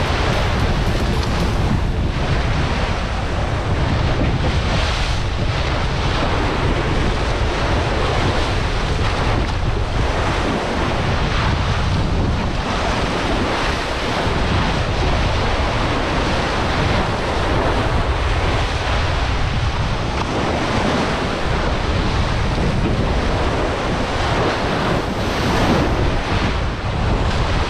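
Bow wave of a sailing ship under way, water rushing and splashing along the hull, with wind buffeting the microphone in a steady loud rumble.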